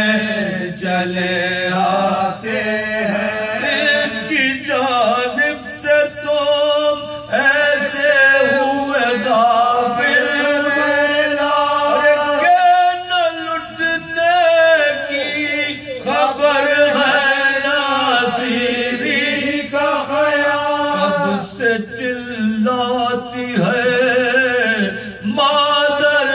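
Male voices reciting a soz, a melodic Urdu mourning elegy, chanted without instruments, with long held notes and several voices together.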